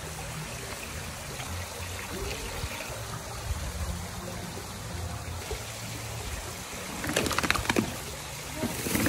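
Water in an aluminium crawfish boiler trickling and sloshing, with louder splashing about seven seconds in and again near the end.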